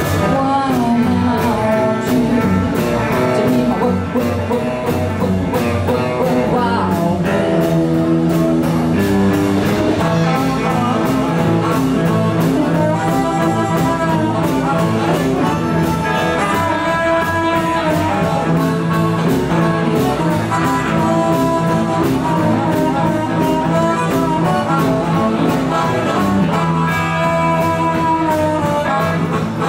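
Live blues band playing: electric guitar, acoustic guitar, upright bass and drums. A woman sings at first, and later a harmonica played into the mic takes the lead with long, bending notes.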